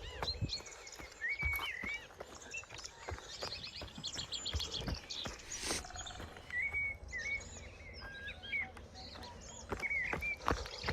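Birds chirping, with short rising and falling calls and a few quick trills, over a steady low rumble and scattered knocks.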